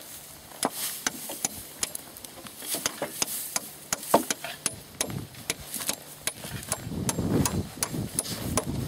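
Spade chopping into dry, grassy turf to dig a post hole: a run of irregular sharp clicks and crunches as the blade cuts through roots and soil, the sharpest about four seconds in.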